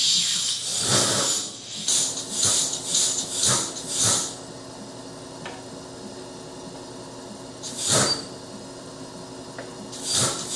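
Short bursts of hissing noise, about six in the first four seconds and two more near the end, over a steady low hum.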